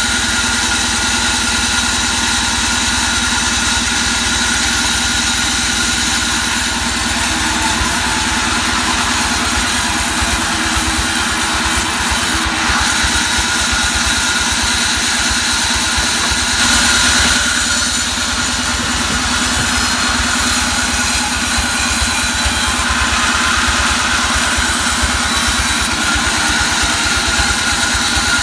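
Large vertical band saw running steadily and cutting mahogany boards: a loud, even machine hum with steady high tones, briefly louder about two-thirds of the way through.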